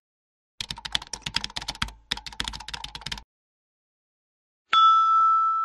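Computer keyboard typing: a fast run of key clicks in two bursts. Then near the end a loud steady pitched chime starts abruptly and holds.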